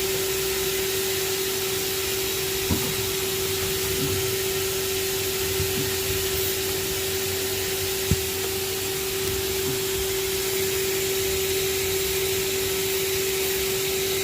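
A blower motor running with a steady whine and rush of air, pushing air through a hose into a tailpipe to pressurize the exhaust so that leaks show as bubbles. Two faint clicks come a few seconds apart.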